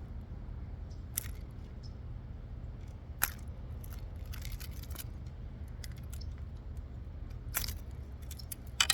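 Scattered light clicks and clinks, about five of them, over a steady low rumble, from handling a just-landed bass and the hooked glide bait.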